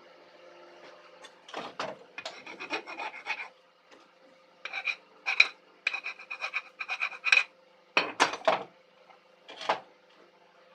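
Several bursts of quick rasping strokes on something hard that rings, like a file or scraper worked back and forth over metal, with short pauses between the bursts.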